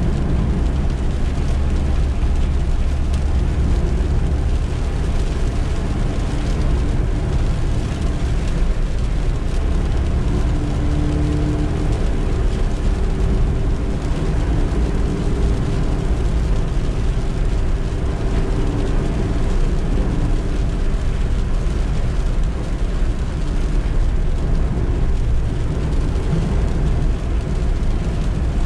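Suzuki Eeco van driving, its 1.2-litre four-cylinder petrol engine running over a steady, heavy low road rumble. The engine note shifts slightly in pitch around the middle.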